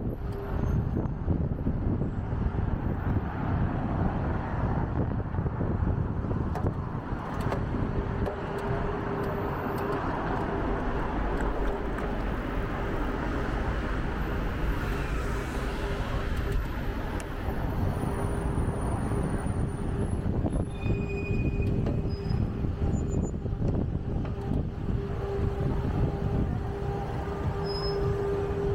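Busy city road traffic heard from a moving bicycle: engines and tyres of passing vehicles, with a steady low hum running through most of it.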